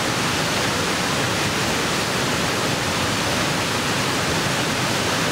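Whitewater river rapids: a steady, even rush of churning water.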